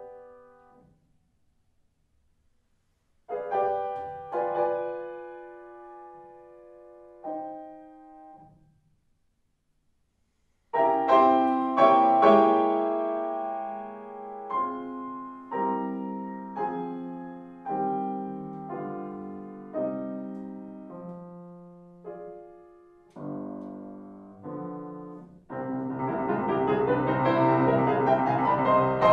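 Solo grand piano playing classical music. A note fades out and is followed by a pause. Then come slow chordal phrases broken by another short silence, a run of loud struck chords that each ring and fade, and near the end a fast, dense, louder passage.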